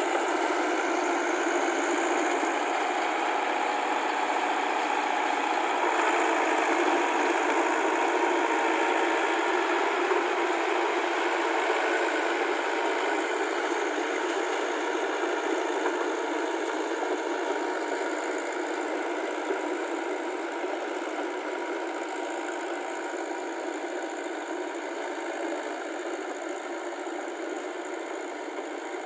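Massey Ferguson tractor's diesel engine running steadily under load, driving a rear rotary tiller through wet paddy mud. The sound fades gradually over the second half.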